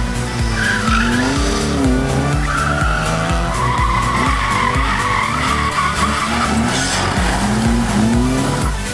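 Car tyres squealing and engines revving in rising bursts as hatchbacks slide around cones on asphalt, over background music with a steady beat.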